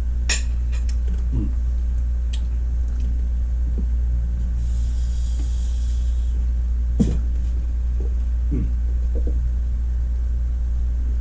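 A steady low hum throughout, with a few sharp clicks and knocks of handling over it and a soft hiss lasting about two seconds midway through.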